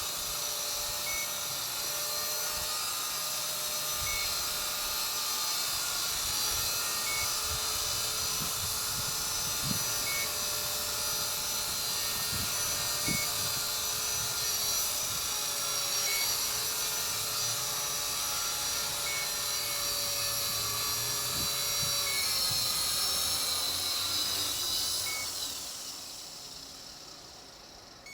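Walkera V120D02S micro RC helicopter hovering, its electric motor and rotors giving a steady high-pitched whine, with a short faint beep about every three seconds. Near the end the motor spools down and the whine fades away. Occasional low wind rumbles on the microphone.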